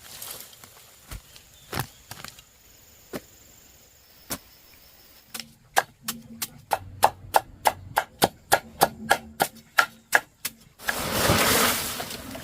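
Fast, even chopping with a blade on wood, about four strokes a second, after a few scattered knocks. A short rush of noise comes near the end.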